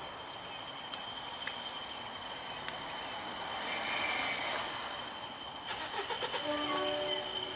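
A rake of Mark 1 coaches rolling away behind a departing English Electric Class 40 diesel locomotive, with the distant engine and wheels on rail. Near the end, a louder rush of noise comes in, with a few short tones.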